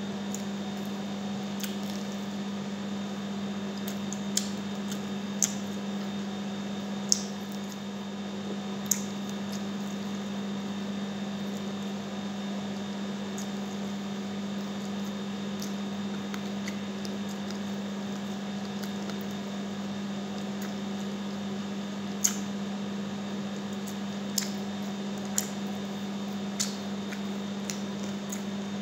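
Close-up mukbang eating sounds of sticky honey garlic chicken eaten by hand: wet chewing and lip smacks, with about eight sharp smacks or clicks scattered through. Under them runs a steady low hum.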